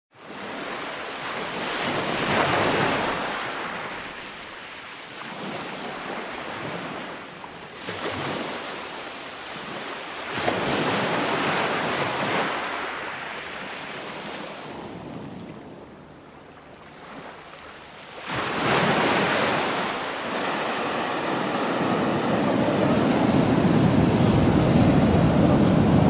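Sea waves breaking and washing up a sandy beach, in surges every few seconds with quieter lulls between. Near the end the sound turns into a steadier, louder rush of surf.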